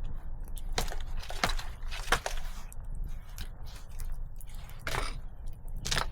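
Dry wood cracking and snapping: a run of irregular sharp cracks, a few of them louder and spaced roughly a second apart, over a steady low rumble.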